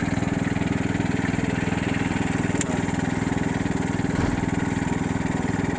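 Small boat engine idling steadily with an even, fast chugging.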